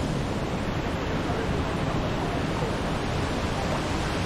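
Waterfall's falling water rushing steadily, an even wash of noise.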